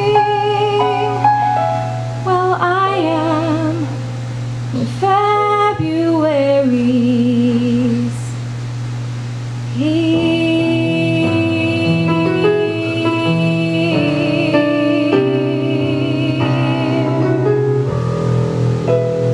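A woman singing long notes with vibrato, with some gliding phrases, over piano chords: the closing bars of the song. The voice drops out briefly near the middle, then comes back on a long held note.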